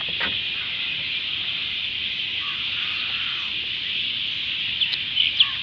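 Outdoor ambience: a steady high-pitched drone, with faint calls and a few short sharp chirps near the end.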